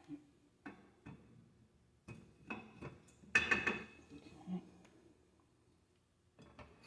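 Rear axle shaft of a 1956 Cadillac being slid back into its axle housing: a few separate metal knocks and clinks, then a longer run of metal-on-metal scraping and clanking with some ringing, loudest about three and a half seconds in.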